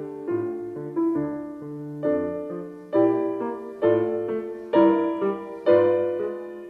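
Background piano music: slow chords struck about once a second, each ringing and fading.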